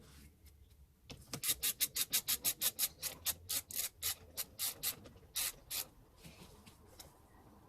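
Ratchet wrench with a 16 mm socket clicking rapidly, about six clicks a second, as it turns the steering wheel's centre bolt, then two slower clicks.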